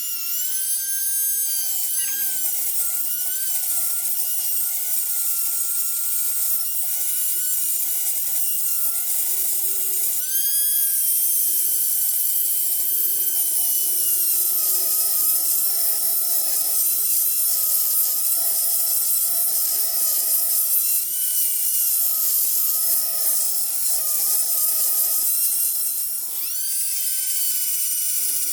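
Handheld high-speed grinder whining as it grinds out the cast-iron intake ports of a 318 cylinder head to match the gasket. The pitch sags and wavers as the tool loads up, and it eases off and spins back up about ten seconds in and again near the end.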